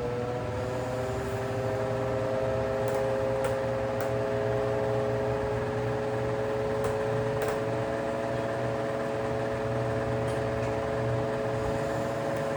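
Electric desk fan motor running with a steady whine and hum. Its pitch rises slightly and settles about a second in as the fan comes up to speed, with a few faint ticks.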